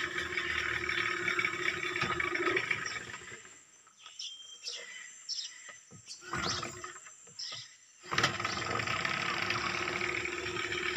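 Small Yamaha outboard motor running steadily, then dying away about three and a half seconds in. In the lull come a few bird chirps and knocks as the boatman works at the motor. About eight seconds in it starts again suddenly and keeps running.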